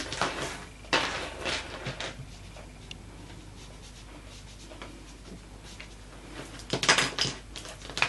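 Hands handling a small paper tag and an ink dauber on a cutting mat: brief scratchy rustles and light taps near the start, about a second in, and a louder cluster near the end.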